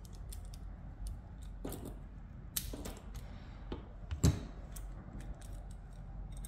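Small tubing cutter being worked on a brake line: a run of light, irregular metallic clicks and ticks, with one heavier knock about four seconds in.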